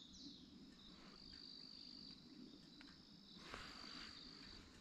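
Near silence, with insects giving a faint, steady high-pitched trill that breaks off a few times, and a brief falling chirp right at the start.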